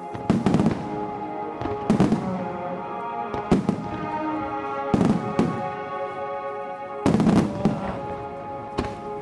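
Aerial fireworks shells bursting, about five loud bangs one to two seconds apart, each with a short crackling tail, over music with sustained notes.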